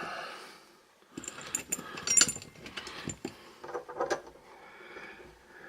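Small metal screws clinking and rattling as they are picked through and handled, a quick run of light metallic clicks and taps.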